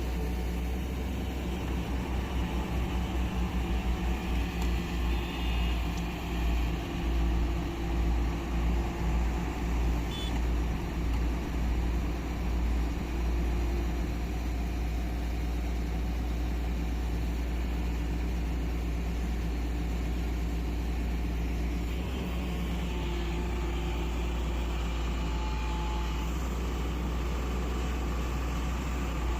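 Diesel engine of a heavy construction machine running, a steady low drone that swells and eases about once a second for the first dozen seconds, then holds even.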